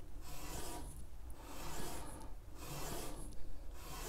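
A Seiko 6309 stainless-steel watch case being rubbed by hand on a fine grey non-woven abrasive pad, in scratchy back-and-forth strokes about once a second. This is the case's top surface getting a brushed finish.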